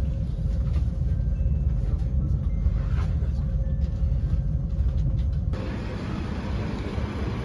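Steady low rumble of a moving passenger train, heard inside the carriage. About five and a half seconds in it cuts to quieter, wider outdoor street noise.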